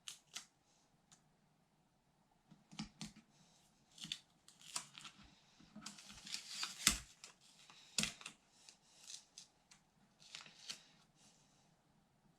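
Faint, scattered rustling and light clicks of hands handling a self-adhesive rubber screen gasket on a resin 3D printer's LCD screen, peeling it up and pressing it back down; the sharpest clicks come about seven and eight seconds in.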